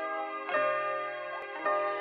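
Gentle instrumental intro music: held, chord-like notes, with new notes striking in about half a second in and again near the end.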